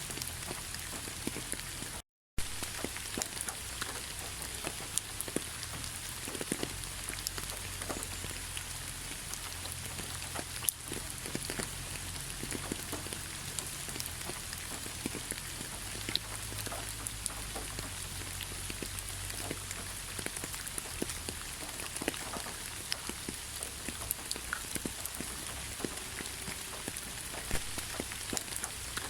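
Heavy rain falling steadily, a dense hiss scattered with the ticks of single drops striking. The sound cuts out completely for a split second about two seconds in.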